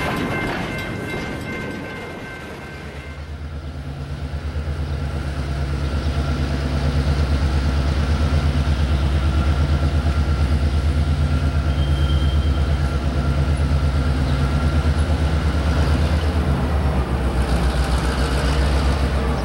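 Empty freight flatcars rolling past with wheel clatter and faint squeal, fading out. About three seconds in, the deep, throbbing drone of an EMD GP9 diesel locomotive's two-stroke V16 engine takes over, grows louder over a few seconds and then runs steadily as the locomotive approaches.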